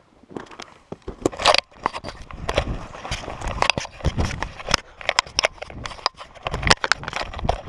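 Handling noise from a body-worn camera being jostled: a rapid, irregular run of knocks, scrapes and rustles that starts about a second in, loudest about a second and a half in.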